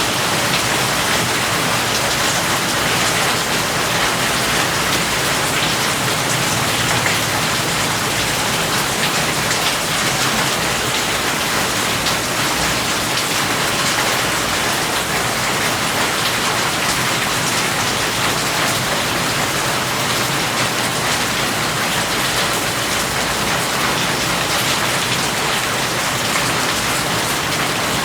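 Steady rain falling, an even hiss of many drops on a surface that keeps the same level throughout.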